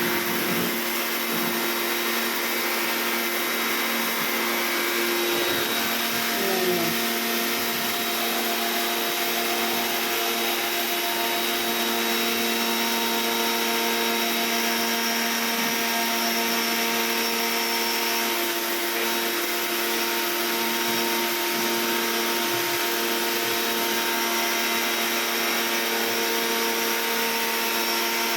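Kawasaki electric pressure washer running steadily, its motor and pump giving a constant hum made of several steady tones over a hiss. This even sound is the sign that the machine is working properly.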